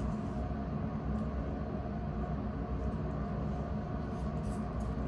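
Steady low mechanical hum in a small room, with a few faint snips of dissecting scissors cutting through tissue near the end.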